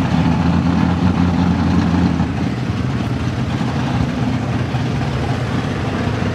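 Chevrolet pickup truck's engine idling steadily with a low, even note, easing slightly about two seconds in, as it waits hooked to a pulling sled.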